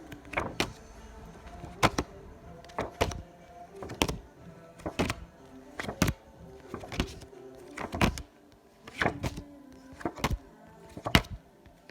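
A pack of phonics flashcards being turned over one at a time, each card making a short sharp flick about once a second.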